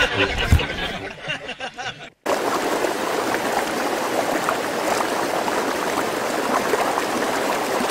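Background music fades out over the first two seconds and cuts off. After a moment's silence, a steady rushing of flowing water, like a stream, starts up and carries on evenly.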